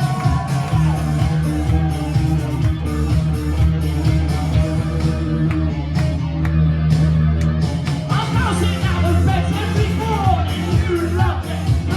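Live indie rock band playing loudly with electric guitars, bass and drums, and a vocalist singing; the singing drops out for a stretch in the middle and comes back about eight seconds in.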